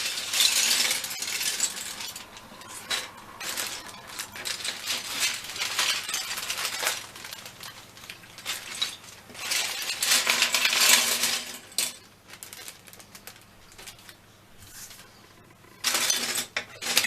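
Hard plastic Airfix Quick Build kit parts being handled and sorted, clicking and clattering against each other in bursts. The busiest handling comes near the start, around the middle and near the end.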